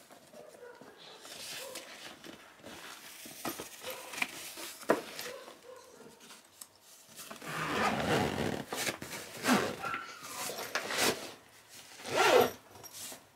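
Rustling and bumping of a JanSport backpack's fabric as a cardboard gift box is pushed inside, with the backpack's zipper being pulled.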